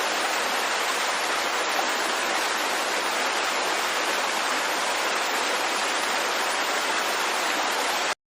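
Waterfall: a steady rush of falling water that cuts off suddenly near the end.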